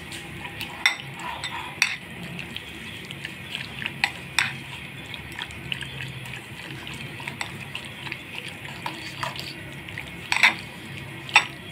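A metal utensil stirring raw chicken pieces in a wet spice-and-yogurt marinade in a glass bowl, with scattered clinks against the glass. The loudest clinks come about a second in, near two seconds, and about ten and eleven seconds in.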